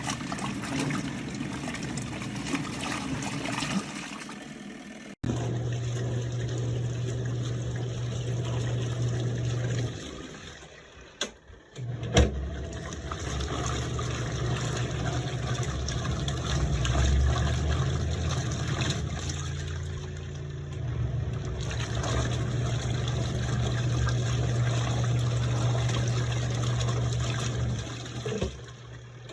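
Garatic mini twin-tub washing machine at work: water swishing in the tub, then the steady hum of its motor, which stops for about two seconds near the middle and starts again with a knock.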